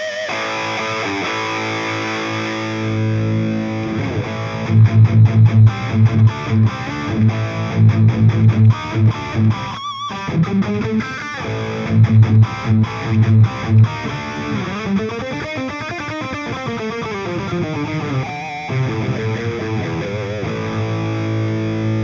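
Distorted electric guitar played through the Anvil amp-simulator plugin. It opens on held chords, plays a choppy riff of short rhythmic stabs from about five seconds in until about fourteen, then switches to single-note lines that bend and waver in pitch, and ends on held chords.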